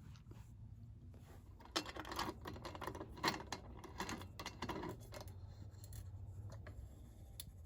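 A quick run of light clicks and rustles, as of small objects being handled, from about two to five seconds in, over a low steady hum.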